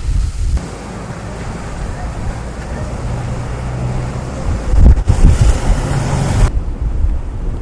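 Hurricane-force wind blowing hard, with strong gusts buffeting the microphone in low rumbles, the loudest about five seconds in.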